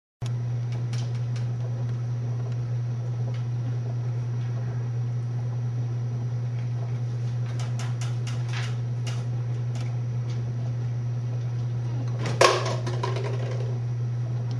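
Steady low room hum with a few faint clicks, and one sharp knock about twelve seconds in.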